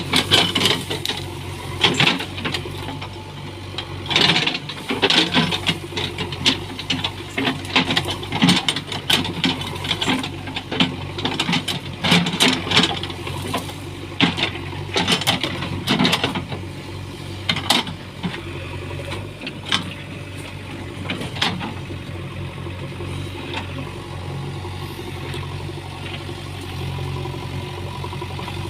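JCB backhoe loader's diesel engine running steadily, with many sharp, irregular cracks and knocks from the clearing work for most of the time. These stop about 22 seconds in, leaving the engine running alone.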